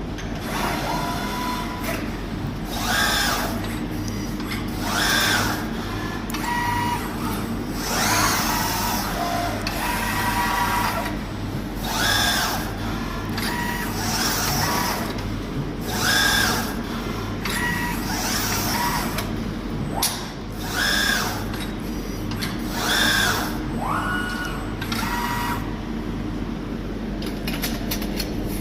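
All-electric CNC tube bender bending a 20 mm tube. Its electric drive motors whine in short bursts about every two seconds, some rising or falling in pitch, over a steady low hum.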